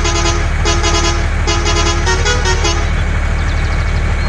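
Truck horn sounding three groups of toots, the last stepping through several notes like a short tune, over a steady low truck engine idle.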